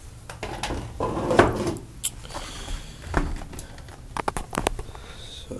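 Handling of a model locomotive's clear plastic sleeve and packaging: scattered clicks and crinkles, with a quick run of sharp clicks about four seconds in.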